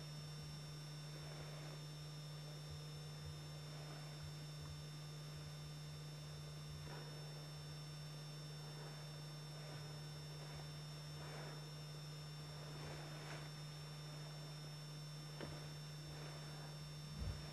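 Steady low electrical hum under faint hiss and a thin, steady high whine, with no distinct sound from the animals. A brief low thump comes near the end.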